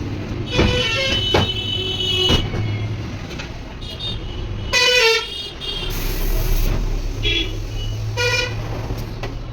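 Road traffic with vehicle horns honking several times over a steady low engine hum, and a few sharp knocks in the first two seconds.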